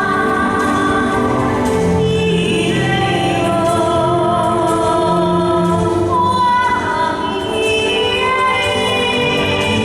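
Music from a light-and-sound show soundtrack, with singing in long held notes over a low accompaniment.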